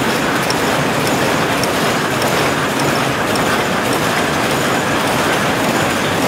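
Power loom running while it weaves blanket fabric: a loud, steady mechanical clatter with faint regular ticks in it.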